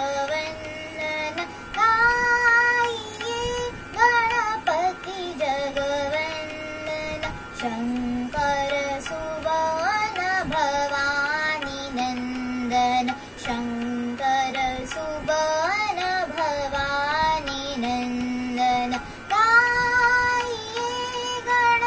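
A young girl singing a devotional song to Ganesha in a melodic, held-note style.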